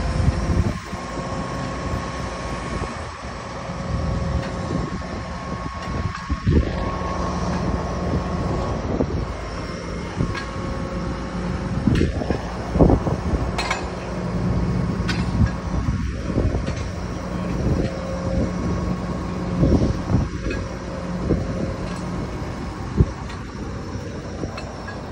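Kobelco crawler crane's diesel engine running with a steady hum, with scattered metallic clanks and knocks from the machine.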